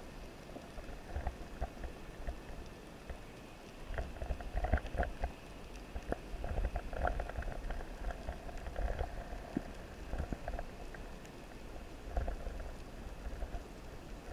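Underwater ambience: a steady crackle of small clicks over low rumbling water movement, the rumble swelling from about four seconds in.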